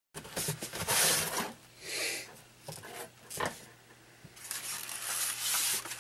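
Styrofoam packing insert scraping and rubbing as it is slid out of a cardboard box, with cardboard rustling. The scraping comes in rough strokes, loudest in the first second and a half, with a sharp knock about three and a half seconds in.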